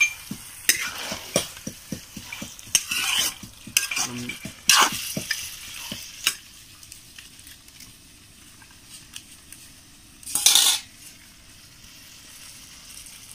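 Metal spatula scraping and stirring chicken liver and gizzard in a metal kadhai over a wood fire, with many quick scrapes for about the first six seconds. After that the frying meat and masala settle to a quieter steady sizzle, broken by one brief louder scrape about ten seconds in.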